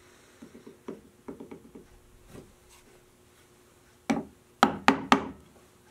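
Wooden mallet striking a bench chisel cutting into a walnut box edge, for a hinge mortise: lighter knocks and scrapes of the chisel first, then four sharp blows in quick succession near the end.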